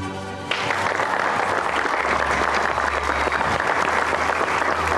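An audience applauding, starting abruptly about half a second in and continuing steadily.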